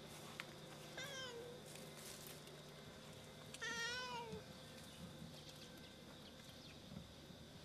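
Domestic cat meowing twice: a short call about a second in, then a louder, longer one near the middle that rises and falls in pitch.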